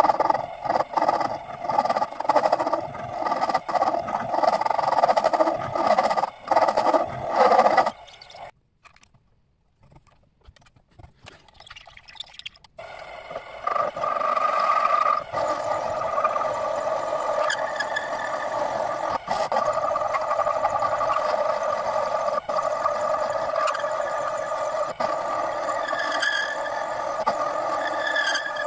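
Loud, irregular scraping with many clicks for the first eight seconds, then a few seconds of near quiet. After that, a mini-lathe runs steadily while its cutting tool turns down a small metal rod, with the hum of the machine and the scrape of the cut.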